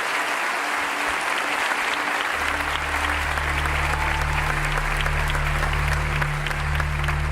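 Audience applauding, a dense steady clapping. About two seconds in, a low steady hum comes in underneath.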